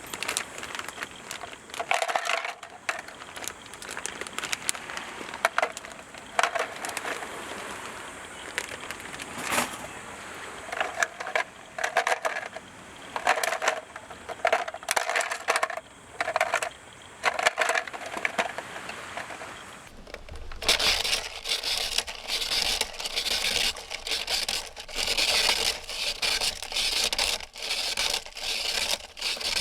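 Ice being crushed for shaved ice, in repeated uneven crunching, scraping strokes. About twenty seconds in it turns denser and harsher, a steady run of rapid grinding crunches.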